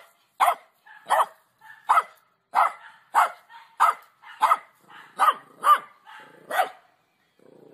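A hairless dog barking repeatedly, about ten barks in a steady rhythm of roughly one and a half a second, stopping shortly before the end.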